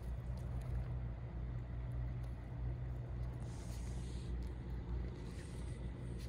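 A motor running steadily in the background: a constant low hum. A brief soft rustle comes about three and a half seconds in.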